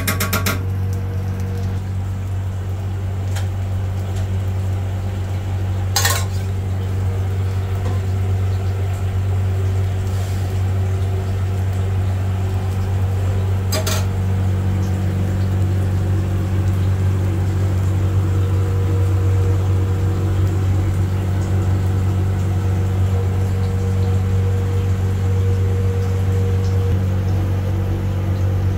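Steady low machine hum of commercial kitchen equipment at a dosa griddle, with two short metallic clinks, about six and fourteen seconds in.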